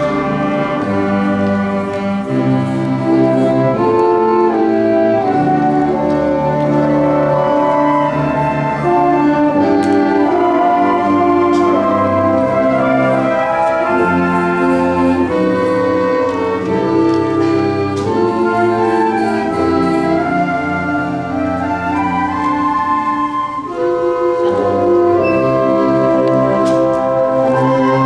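Concert band of woodwinds and brass playing in full harmony, with a moving melody over held chords and a few light percussion strokes.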